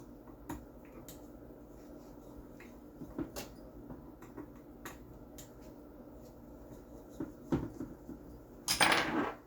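Scattered light clicks and taps of a tool and small parts as screws are undone on an airsoft M4's upper receiver, with a louder noisy clatter lasting under a second near the end.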